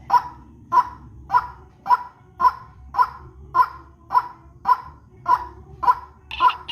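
White-breasted waterhen (ruak-ruak) calling in a lure recording: short harsh calls repeated in a steady rhythm, nearly two a second. Near the end a second, higher-pitched calling voice joins in.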